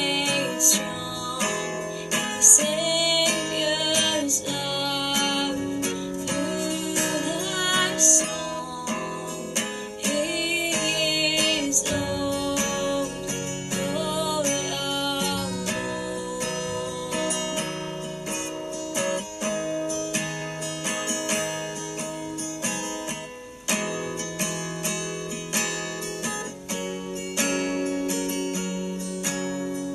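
Acoustic guitar strumming chords for a slow worship song, with a woman's voice singing over it at times.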